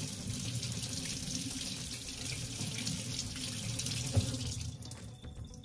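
Kitchen tap running, the water splashing over a spaghetti squash as it is rinsed by hand. A single knock about four seconds in, and the water stops near the end.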